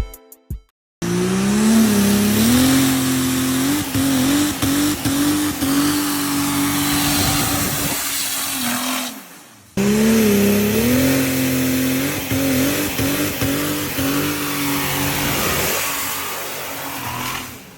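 Compound triple-turbo Cummins diesel in a third-generation Dodge Ram 2500 starting up. Its tone rises as it catches, then settles into a steady, wavering run with a lot of hiss over it. The start-up is heard twice, with a short break about nine seconds in.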